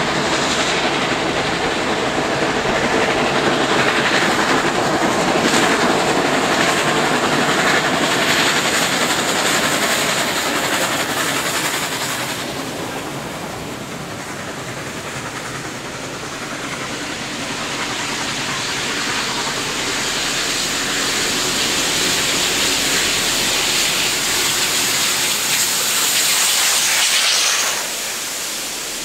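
Two steam locomotives working hard under load, with steam exhaust and hiss over the clatter of wheels on rail. The sound is loud at first, eases in the middle, builds again as a locomotive draws close, then drops suddenly near the end.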